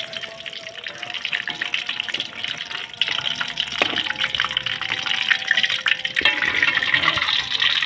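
Hot cooking oil sizzling and crackling in a wok as pieces of fried tofu in tapioca batter are lifted out on a perforated metal skimmer. The sizzle grows louder about three seconds in, with a couple of light knocks.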